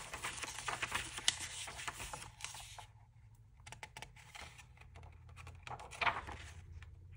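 Paper rustling and light clicks as a printed diary is handled and its pages are turned. The rustle is dense for the first few seconds, then thins to a few soft ticks, with a short swell of rustle about six seconds in, like a page being turned.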